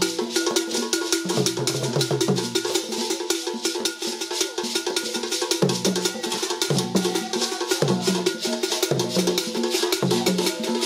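Percussion-heavy music: fast, dense strokes like a wood block or bell over held tones, with a bass line that comes and goes in phrases.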